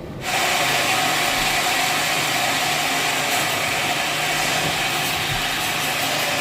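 Bandsaw sawmill cutting through a log: the blade bites in suddenly just after the start, then a steady hiss with a held whine.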